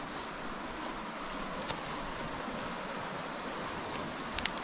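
Steady rush of a stream, with a few sharp snaps of twigs and sticks underfoot, about two seconds in and twice close together near the end.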